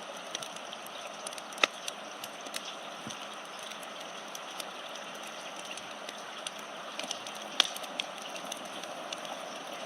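Fire crackling: a steady hiss with scattered sharp pops, a few of them loud, as of a house burning.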